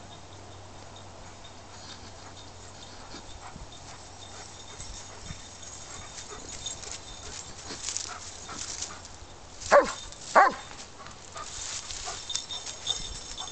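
German Shepherd search-and-rescue dog giving two loud barks in quick succession about ten seconds in, its stay-and-bark alert at the hidden people's blind. Fainter rustling noises come before and after the barks.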